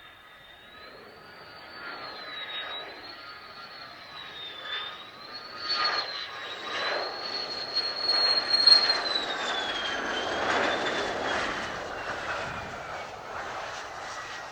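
Mitsubishi F-2 fighter's single F110 turbofan coming in to land: a high wavering whine over a jet rush that grows louder to a peak a little past the middle, then falls steadily in pitch after the loudest point.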